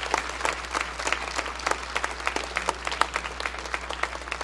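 Church congregation applauding, a dense patter of many hands clapping.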